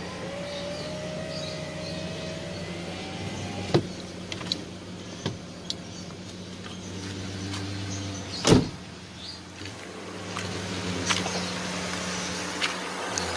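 Ford Escape's electric power window motor whining for about three seconds as the glass moves, over the steady hum of the idling engine. A few light clicks follow, then one loud thump about 8.5 seconds in.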